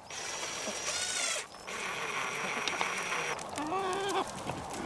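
Cordless drill driving the mounting screws through the feeder's timer plate, running in two bursts of about a second and a half each with a short pause between. A chicken clucks near the end.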